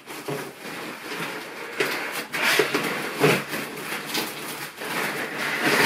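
Clear plastic wrapping crinkling and cardboard scraping as a plastic-wrapped furniture piece is pulled out of a cardboard box, with uneven rustling throughout.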